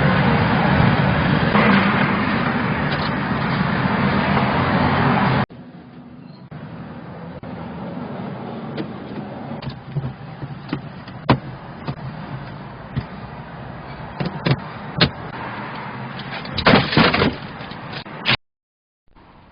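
Mechron 2450 utility carrier's engine running loudly, cut off abruptly about five seconds in. After that come quieter scattered clicks and knocks, with a brief louder clatter near the end.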